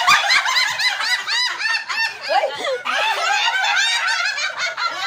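Several women laughing loudly together, high-pitched cackling peals overlapping in quick succession.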